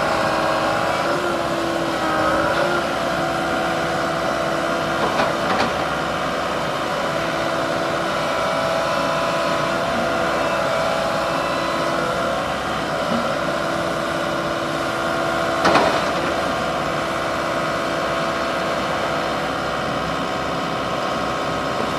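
Komatsu PC138USLC-10 excavator's diesel engine running steadily with a constant hum, and a couple of brief clanks about five seconds and sixteen seconds in.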